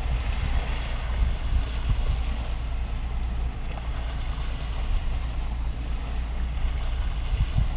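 Outdoor harbour ambience dominated by wind on the microphone: a steady low rumble under an even hiss, with gusts swelling just before the end.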